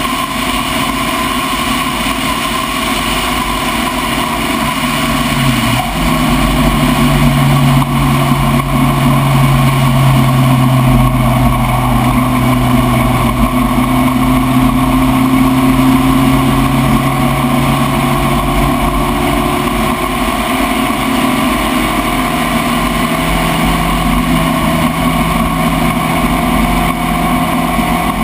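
Spec Racer Ford's four-cylinder race engine running hard under load. There is a brief dip and step in pitch about six seconds in, then a long, steady, louder pull.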